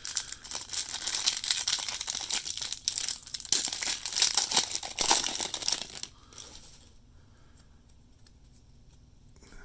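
A baseball card pack's foil wrapper being torn open and crinkled in the hands, a dense crackling rustle that stops about six seconds in.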